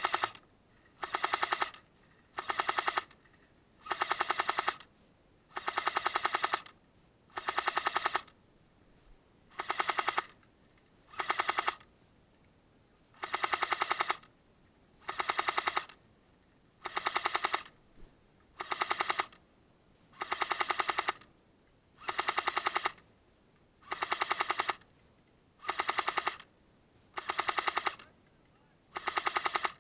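An airsoft M60 support gun firing a steady string of short bursts, each under a second long, one roughly every second and a half to two seconds. Each burst is a rapid mechanical rattle of shots.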